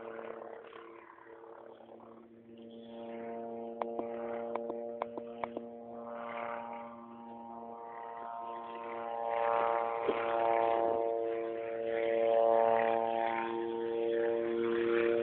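Helicopter flying nearby, a steady hum of several tones from its engine and rotor, growing louder over the stretch. A few sharp clicks come about four to five and a half seconds in.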